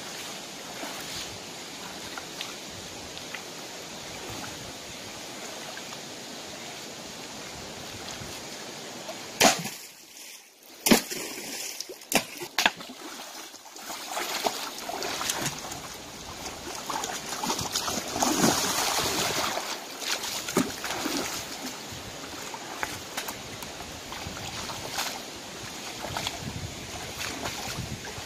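Shallow rocky stream running with a steady hiss, then water splashing and sloshing as a person wades and grabs with his hands among the rocks, loudest a little past the middle. A few sharp knocks come about ten seconds in.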